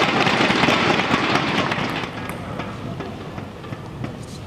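Spectators clapping after a table tennis point, the applause dying away about halfway through and leaving low hall background.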